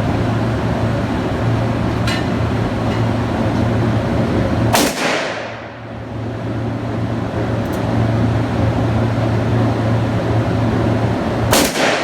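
Two handgun shots about seven seconds apart, each a sharp crack with a short ringing tail. They sound over a steady loud rumble, with a couple of faint clicks between them.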